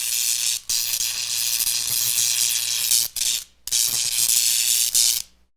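High-voltage electrical arcing: a loud, harsh crackling buzz over a low steady hum. It breaks off briefly twice and cuts off suddenly near the end.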